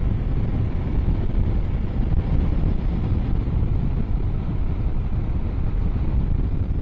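Steady wind rush buffeting the microphone of a camera on a motorcycle moving at highway speed.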